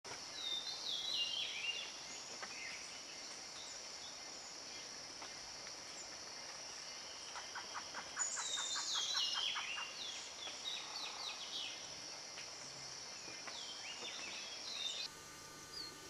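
Tropical forest ambience: birds calling over a steady high hiss. A series of falling whistled notes comes near the start and again about eight seconds in, with a quick run of short repeated notes in the middle. The background changes abruptly to a quieter one near the end.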